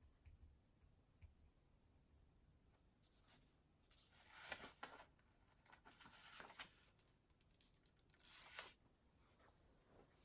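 Faint scratching of a pen or pencil writing on paper, in three short stretches: about four seconds in, about six seconds in, and once more near the end.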